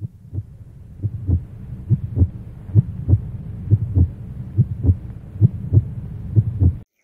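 Heartbeat sound effect: low double thumps, about one pair a second, over a steady low hum, stopping abruptly near the end.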